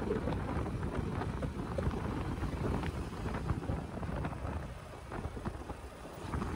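Motorcycle riding at speed, with wind buffeting the microphone over the low, steady rumble of engine and road.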